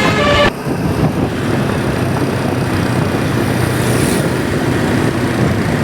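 A tour bus's musical 'telolet basuri' air horn plays the last of its melody and cuts off suddenly about half a second in. Steady bus engine and road noise follow, with a brief high hiss a little past the middle.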